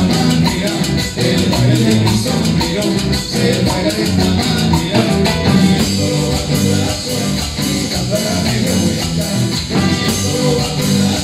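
Live band playing upbeat Latin music: strummed guitars, electric bass and timbales with a steady shaker-like rhythm.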